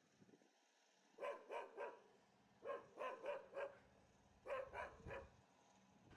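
A dog barking in three quick runs of short barks.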